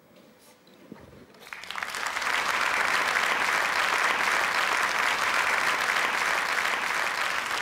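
Studio audience applauding. After about a second and a half of quiet, the clapping swells and then holds steady.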